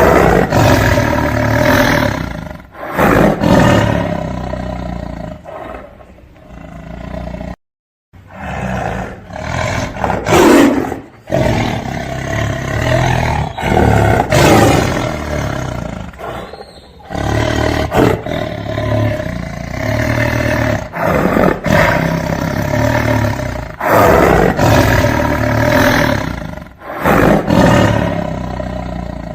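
Tiger roaring again and again in long, loud roars and growls with short pauses between them. Everything cuts out abruptly for a moment about eight seconds in.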